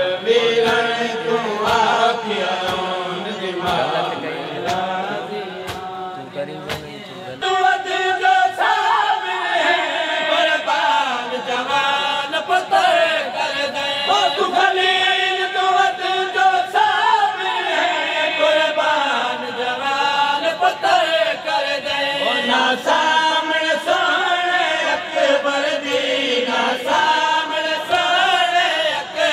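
Men's voices reciting a noha, a Shia mourning lament, led by a reciter through a microphone, with steady thumps keeping time. About seven seconds in, more voices join and it grows louder.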